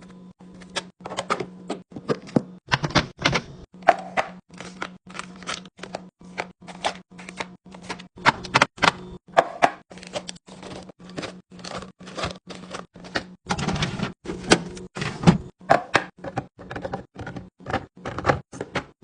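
Quick, irregular clicks, clacks and light knocks of containers and packaged items being set down and arranged on fridge shelves while restocking, over a steady low hum.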